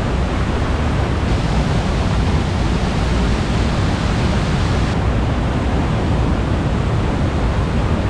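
Steady rushing of a fast river and waterfall, white water pouring over rocks close to the microphone.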